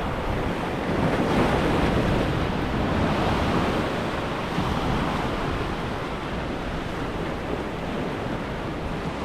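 Ocean surf breaking and washing, swelling louder about a second in and easing off a few seconds later, with wind buffeting the microphone.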